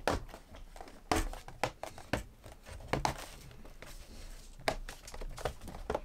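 Plastic bottom cover of an ASUS ROG Strix GL553VE laptop being pressed back on, its edge clips snapping into place in a string of sharp clicks, irregularly spaced at roughly one a second, with handling rustle between them.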